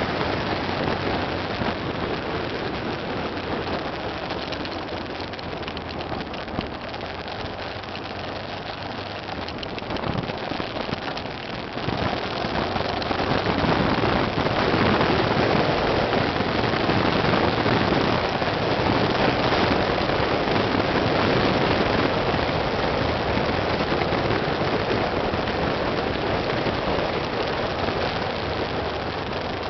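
Honda Africa Twin motorcycle riding a sandy dirt track. A steady rush of wind and tyre noise over the camera microphone, with the engine underneath. It grows louder about twelve seconds in.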